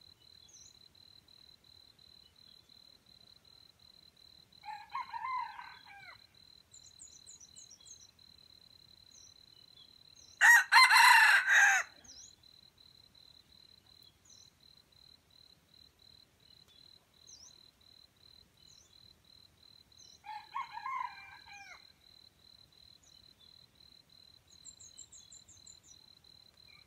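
Red junglefowl roosters crowing: one loud, short crow close by about ten seconds in, and two fainter crows, one about five seconds before it and one about ten seconds after. A steady high insect trill runs underneath, with small birds chirping.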